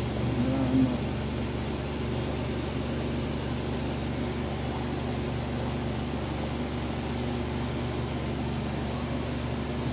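Steady low background hum with a faint hiss, unchanging throughout, broken by a short louder sound about half a second in.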